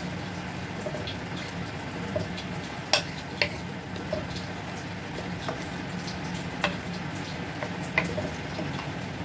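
Chicken pieces sizzling in a pot in their own juices with ginger and onion while a wooden spatula stirs them. Scattered knocks and scrapes of the spatula against the pot come through, the strongest about three seconds in.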